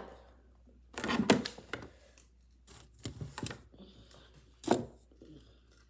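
About four short bursts of clicking and rustling from scissors and a plastic action figure being handled as the figure is freed from its packaging.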